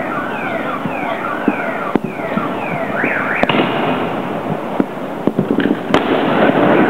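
Dense crackling of many fireworks and firecrackers going off at once, with sharper single bangs about two, three and a half and six seconds in. A repeated falling whistle-like tone sounds over the top through the first half.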